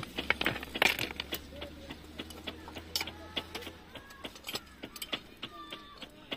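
Irregular metallic clinks and taps as hand tools and clamp parts knock against the rail and the rail-welding mould clamp being fitted, the strongest knocks in the first second.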